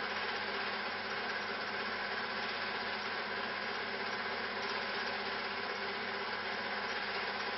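A steady, unchanging motor hum with hiss and no breaks or knocks.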